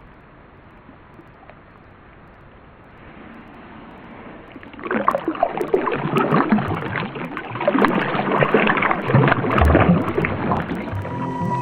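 Faint running river water, then from about five seconds in, loud irregular splashing as a giant amarillo (jau) catfish is released and beats its tail in the shallow river.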